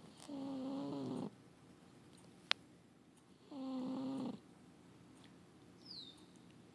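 Domestic cat snoring: two pitched, buzzy snores, each about a second long and about three seconds apart, in a regular sleeping-breath rhythm. A single sharp click falls between the two snores.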